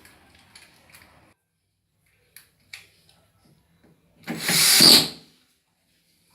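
Reassembly work on a washer-dryer: two light clicks, then a loud noisy burst lasting about a second, a little after four seconds in.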